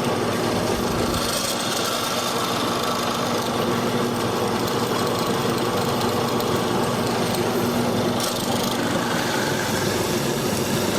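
Hollow-chisel mortiser running steadily, its motor humming as the auger bit and hollow square chisel bore a square mortise into wood.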